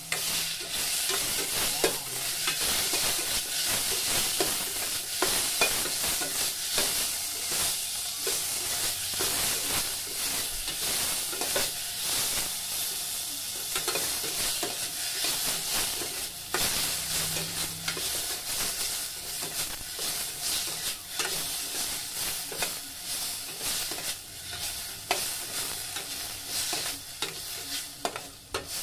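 Onion and tomato sizzling in hot oil in a stainless steel pot, stirred with a long-handled spoon that scrapes and clicks against the pot over a steady frying hiss.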